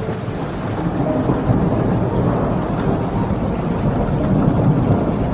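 Rolling thunder rumbling over steady rain, growing louder about a second in.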